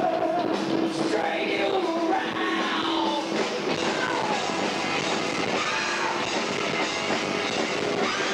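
Rock band playing, with a singer's voice carrying a melody over it.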